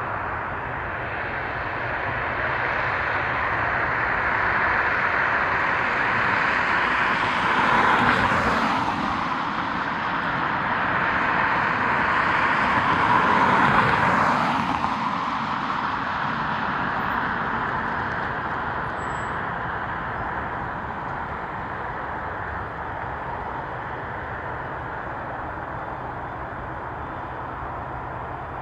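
Jet airliner passing on its landing approach: a loud, even rush of engine noise that swells, peaks twice in quick succession around the middle, then fades slowly.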